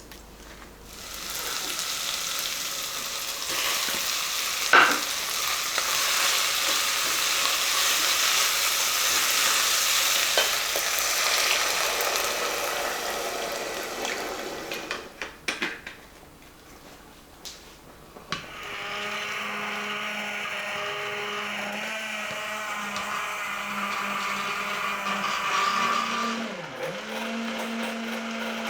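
A loud, even hiss for most of the first half, then a few clicks, and about two-thirds of the way in a cordless hand blender's motor starts and runs steadily at one pitch.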